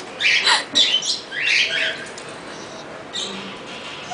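A parrot giving several short, high chirping calls in quick succession in the first two seconds, then one more brief call a little after three seconds.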